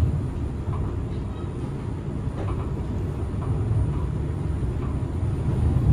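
Linimo 100-series maglev train running, heard from inside the car: a steady low rumble and hum with no wheel-on-rail clatter.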